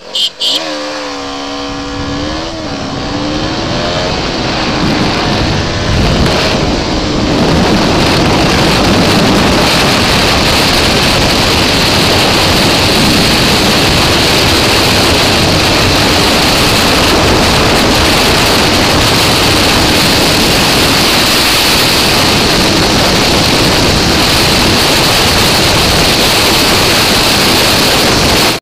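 KTM Duke 200's single-cylinder engine at full throttle, revving up through the gears from a standing start, its pitch climbing with a dip at a gear change about two seconds in. By about eight seconds a loud, steady rush of wind on the rider-mounted microphone covers the engine as the bike holds top speed.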